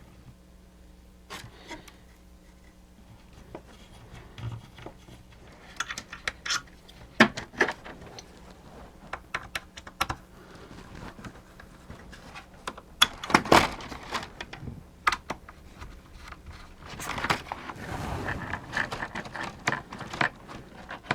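Irregular clicks, taps and rattles of the small plastic and metal parts of a mechanical animated display being handled and worked loose during disassembly, with a louder cluster of knocks about two thirds of the way through.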